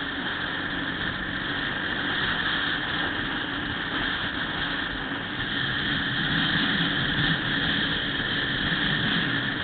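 Steady engine running and wind and road noise from a motorcycle cruising on a highway, heard from a camera mounted on the bike; the level rises slightly after about two seconds.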